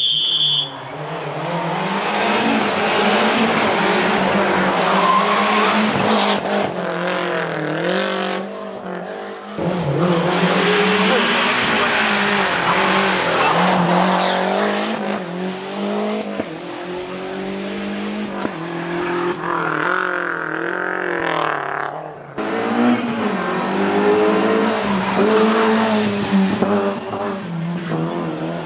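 Rally car engines at full throttle on a tarmac stage, revs climbing and dropping through gear changes as car after car passes, with breaks in the sound about 9 and 22 seconds in between passes.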